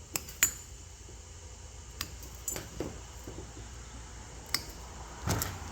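A handful of sharp, separate clicks and clinks from hand tools and wiring being handled, over a low steady hum.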